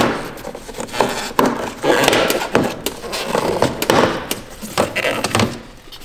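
Irregular clatter of knocks, clicks and scraping from plastic air-conditioner parts being pulled and handled as the PCB panel section is worked free.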